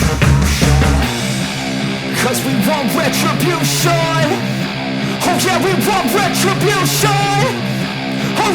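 Background rock music with a wavering lead line that sounds like singing; the heavy bass drops out about a second in.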